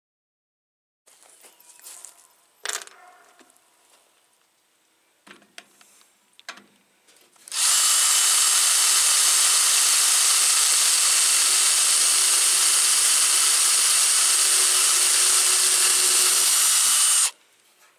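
HART cordless drill running for about ten seconds, drilling pop-rivet holes through the sheet-metal wall of the dog feeder. It starts about seven seconds in and stops abruptly near the end, after a few faint clicks and knocks.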